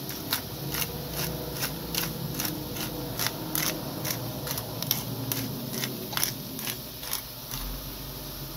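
Chopped cabbage, carrots and onion sizzling in garlic butter in a hot pan, with irregular sharp crackles and pops, two or three a second.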